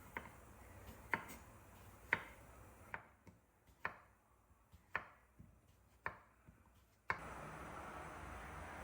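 Knife chopping food on a cutting board in slow, single strokes, about one a second, eight in all. About seven seconds in, the chopping gives way to a steady hiss.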